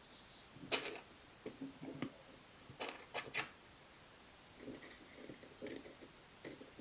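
Small hard parts being handled: scattered light clicks, taps and short rattles in several clusters, quiet throughout, with no rotary tool running.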